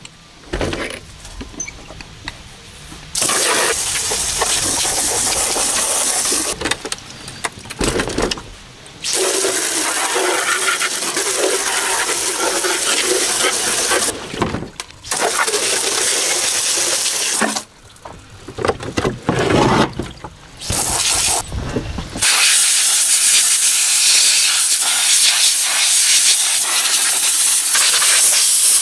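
Garden hose spray nozzle blasting water onto a mud-covered RC truck to rinse it clean: a loud hiss of spray that starts and stops several times, then runs unbroken through the last third.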